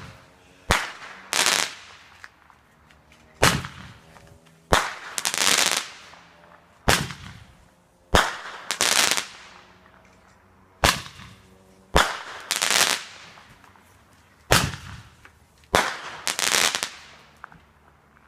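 Fireworks going off in a repeating series: each shot is a sharp bang followed, under a second later, by a longer noisy burst. This happens about six times, roughly every two to three seconds, then stops.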